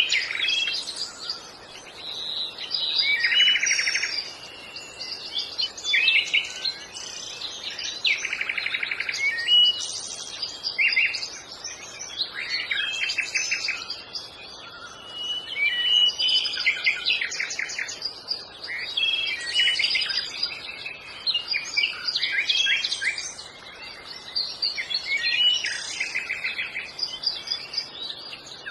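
Birds calling: many short chirps, trills and whistles overlapping continuously, swelling and fading in loudness.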